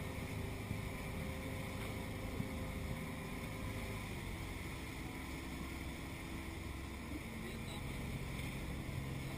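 Motorboat engine running steadily under a constant low drone, its note shifting about four seconds in and again near the end.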